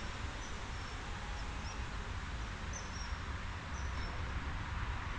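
Small birds chirping, with short high notes scattered through, over a steady hiss and a low rumble of outdoor background noise.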